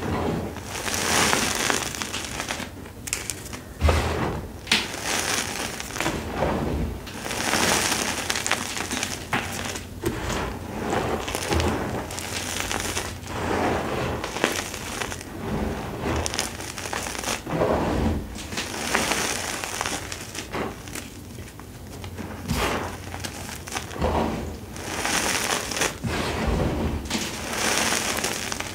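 Hands squeezing and sifting crumbled dyed gym chalk: a crunchy crumbling with a sandy hiss, coming in repeated swells every second or two, with a few sharp little cracks as lumps break.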